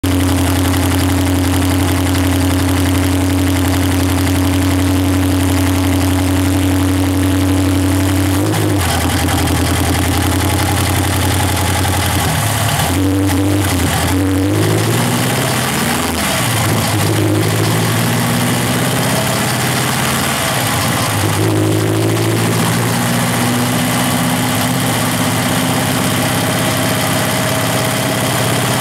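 Chevrolet Chevette's four-cylinder OHC engine heard close up from the bumper, running steadily, then revved up and down several times through the middle before settling back to a steady run.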